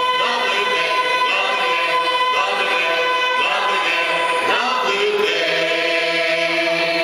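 Gospel choir of men's and women's voices singing, the final phrase ending on a long held chord over the last couple of seconds.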